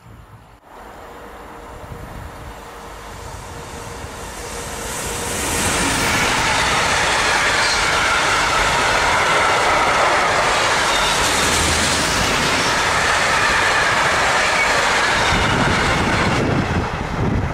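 Freight train of tank wagons hauled by a DB class 187 TRAXX electric locomotive passing close by: the rolling noise and clatter of wheels on rail builds over the first few seconds as it approaches, then holds loud and steady while the wagons go by, easing off right at the end.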